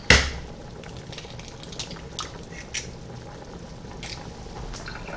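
A raw egg knocked once sharply to crack its shell, followed by a few faint small clicks as the shell is pulled open over the cup.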